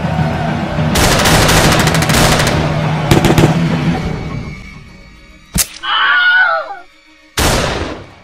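Gunfire sound effects: for the first four seconds, a dense stretch of rapid shots and blasts that fades out. Then a single sharp shot, a brief wavering pitched sound, and one more loud shot or blast near the end.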